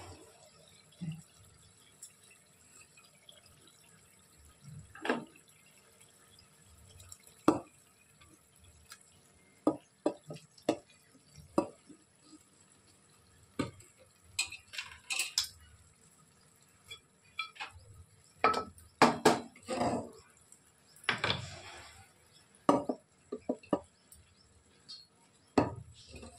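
Irregular clinks and knocks of a utensil against metal cooking pots as parboiled rice is scooped into the biryani pot, the strokes coming thicker in the second half.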